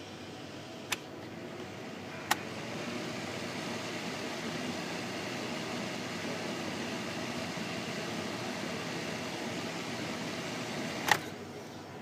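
Vornado 10-inch box fan running with a steady rush of air. A sharp click comes about a second in and another about two seconds in, after which the air noise grows louder; a third click near the end is followed by the noise dropping back.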